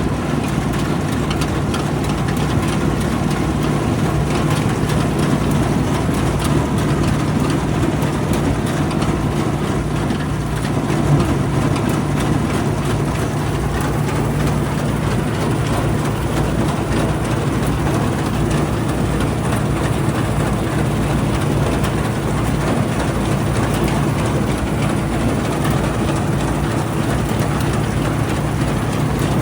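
Bizon combine harvester running steadily: a constant low diesel hum with machinery noise over it, and one brief knock about eleven seconds in.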